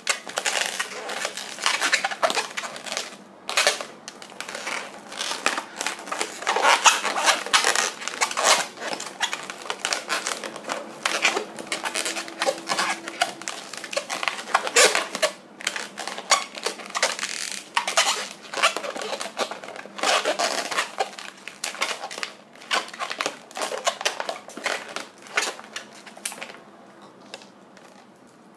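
Inflated latex modelling balloon being twisted and worked by hand close up: a dense, irregular run of squeaks and rubbing of stretched latex under the fingers. It thins out and goes quieter near the end.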